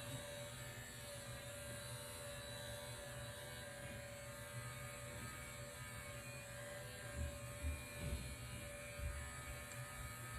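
Battery-powered facial cleansing brush buzzing faintly and steadily as it is worked over wet, cleanser-covered skin, with a few soft low bumps about seven to nine seconds in.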